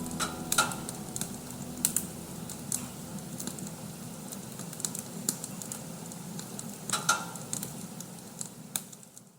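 Bonfire crackling: irregular sharp snaps and pops over a soft hiss. The last of a piano chord fades out at the very start.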